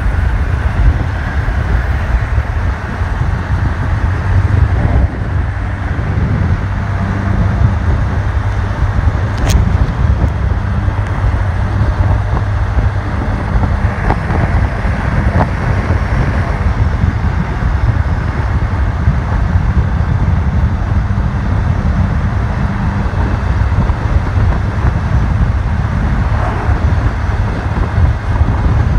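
Motor scooter engine running at a steady cruising speed, with wind and road noise rushing over the microphone.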